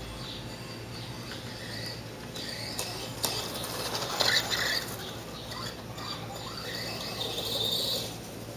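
Tamiya TLT-1 Rockbuster radio-controlled monster truck's electric motor and gearbox running as it drives over grass, getting louder as the truck passes close about four seconds in and then fading as it drives away. Faint chirping carries on in the background.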